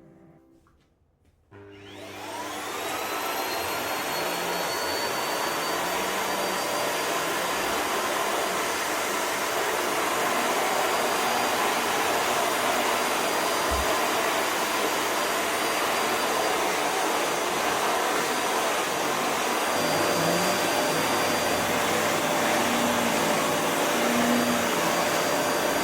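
Vacuum cleaner switched on about a second and a half in, its motor whine rising as it spins up, then running steadily.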